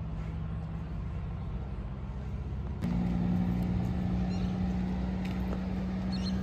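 Heavy truck diesel engine running with a steady low drone. About three seconds in it gets suddenly louder, with a slightly higher drone.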